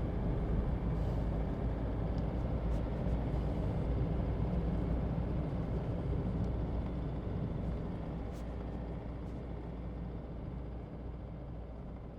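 A vehicle on the move: steady low engine and road rumble that gradually gets quieter over the last few seconds, as if slowing down.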